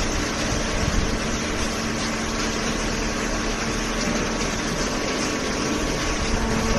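Hydraulic baler's power unit running: a steady hum over dense machine noise.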